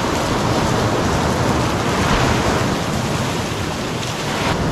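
Steady rush of ocean surf breaking on a sandy beach.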